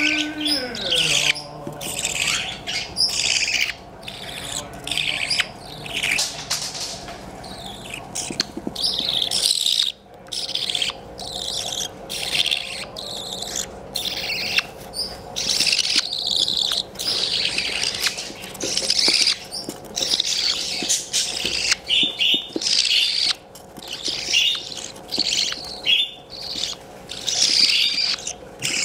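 Several baby budgerigar (parakeet) chicks chirping continually in short, raspy, overlapping bursts.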